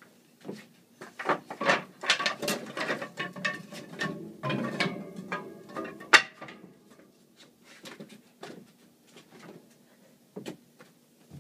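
Clattering knocks and scrapes from a wooden ladder being handled against a metal balcony railing, in a busy run of a few seconds with one sharp knock about six seconds in, then a few scattered light knocks.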